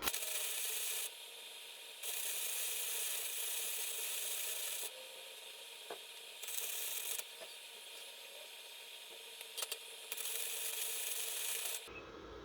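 Welding arc crackling and hissing in four separate bursts: about a second, about three seconds, a short one, then nearly two seconds. The arc is struck and broken each time a bead is laid.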